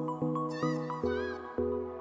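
Background music: chords struck in a steady pulse, with a wavering high melody line above them.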